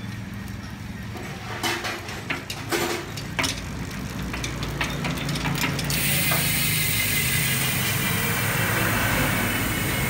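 Aeroic AM 8.5 six-pawl rear hub freewheeling as the rear wheel spins free, its pawls ticking. A few sharp separate clicks come between about two and three and a half seconds in. From about six seconds the ticking turns into a dense, even, high-pitched buzz.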